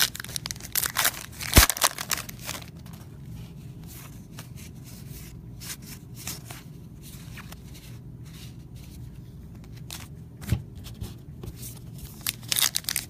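Allen & Ginter baseball cards being flipped and slid through the hands: sharp papery flicks and rustles, bunched in the first couple of seconds and again near the end, over a steady low hum.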